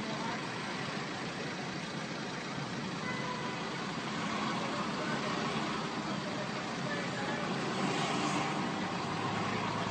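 Steady road traffic noise, a low hum of engines at a street intersection heard from inside a car, with no sharp events.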